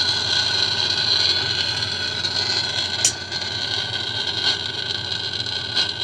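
Handheld gas torch burning with a steady hiss while it heats the washing machine drum's centre hub to loosen it, with a sharp click about three seconds in.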